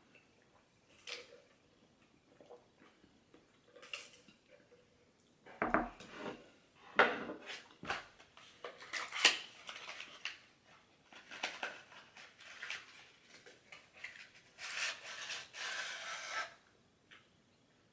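Close-miked eating sounds from a McDonald's meal: irregular chewing, crunching and handling noises, with a longer rustle about three-quarters of the way through.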